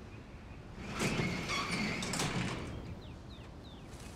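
Metal yard gate being pushed open: a rattling scrape with a steady high squeal, lasting about a second and a half, then fading.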